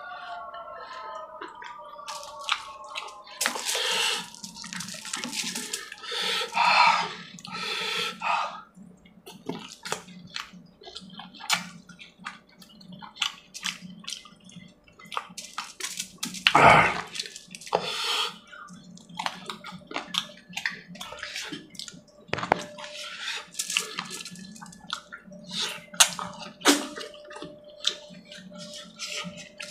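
Close-up wet eating sounds of a man eating chicken curry and puri by hand: irregular lip smacks, mouth clicks and chewing, with a few louder slurps, over a steady low hum.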